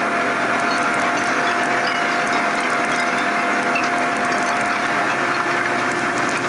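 Steady machine noise with a constant whine and scattered crackle, from a garbage dump truck running with its body raised as it tips its load. It comes through the worn, poor-quality soundtrack of an old film.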